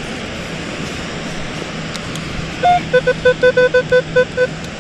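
Metal detector target tones over steady surf noise. About two and a half seconds in comes one higher beep, then a quick run of about ten short, lower beeps of the same pitch, signalling a buried target in the sand.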